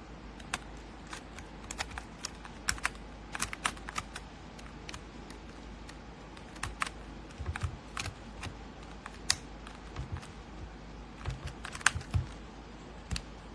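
Mechanical keyboard keys being pressed in irregular, sparse clicks, some in quick pairs or small clusters, over a steady low hum.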